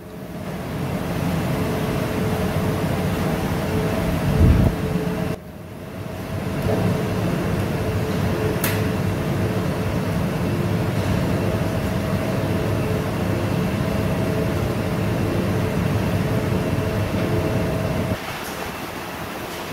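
Electric motor of a candy-pulling machine running steadily with a constant hum as its drum spins, winding strands of pulled sugar. The sound breaks off sharply about five seconds in and drops in level near the end, at cuts.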